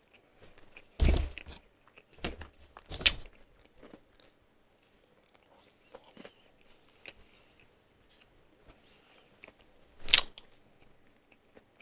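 Close-miked chewing and crunching of crispy-crusted fried chicken. Loud crunches come about a second in, twice around three seconds, and again about ten seconds in, with small wet mouth clicks between.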